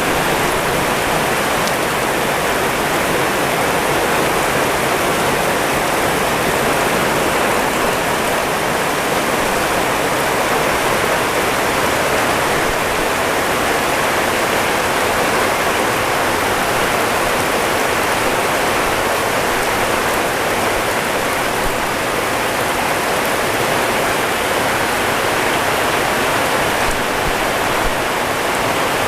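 Heavy rain pouring down in a dense, steady hiss that does not let up.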